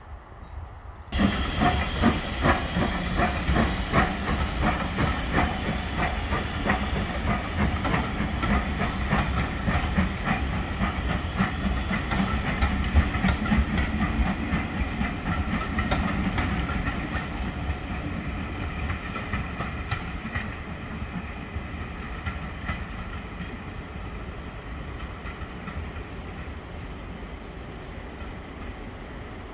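Steam train passing: an LMS Fairburn 2-6-4 tank locomotive hauling coaches, with hissing steam and a quick regular beat. It comes in loud about a second in and fades steadily over the second half as the train draws away.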